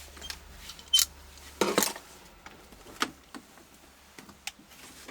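A Samsung LCD TV set being turned over on the bench: scattered knocks and scrapes of the set being handled, the loudest a sharp knock at the very end.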